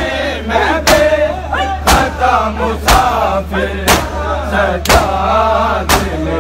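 Crowd of male mourners chanting a noha lament in unison, punctuated by a sharp collective chest-beating (matam) strike about once a second.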